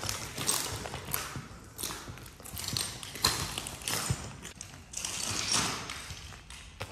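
Footsteps on a floor strewn with debris, irregular steps about one or two a second.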